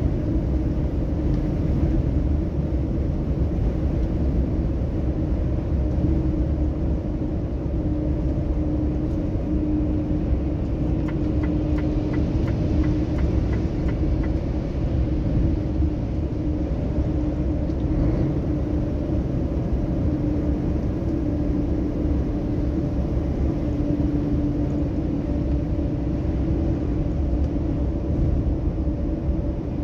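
Inside a truck cab at highway speed: a steady engine and road drone with a constant hum. Around the middle comes a short run of light, regular ticks, about three a second.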